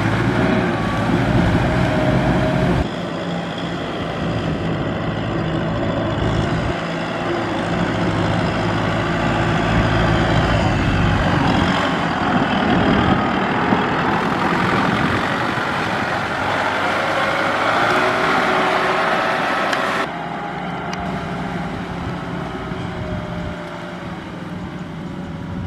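Farm tractor's diesel engine running under load, hauling a trailer through deep mud. The sound changes abruptly about three seconds in and again about twenty seconds in.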